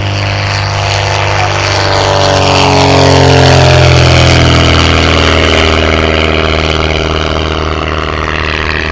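Van's RV-8 light aircraft's single piston engine and propeller at takeoff power, growing louder as it flies past about three to four seconds in, its pitch dropping as it passes, then fading slowly as it climbs away.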